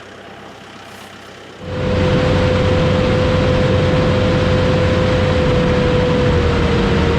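Jet aircraft engine running loud, cutting in suddenly about one and a half seconds in: a steady whine over a dense rush of noise, the whine sagging slightly in pitch near the end.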